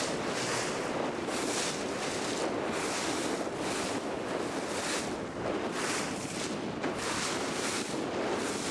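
Wind buffeting the microphone over the rush and splash of water from a boat under way, the hiss swelling and easing every second or so.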